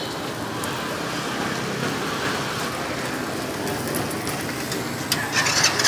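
Steady hiss of quails and sausages sizzling on a charcoal street-food grill, with a louder burst of hissing near the end, over general street noise.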